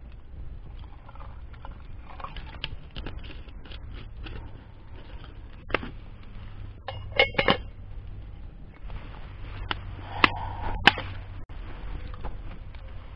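Water trickling from a plastic bottle into a small steel cup, then a handful of sharp plastic and metal clicks and clinks as the bottle and cup are handled. The loudest clicks come in a quick cluster about seven seconds in and as two sharp clinks near ten to eleven seconds. A steady low rumble runs underneath.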